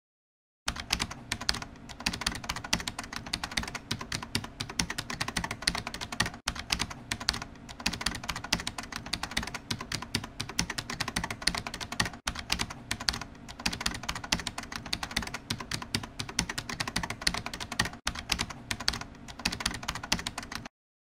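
Computer keyboard typing, a fast continuous run of key clicks that plays as text appears, starting about half a second in and stopping shortly before the end, with a few short breaks along the way.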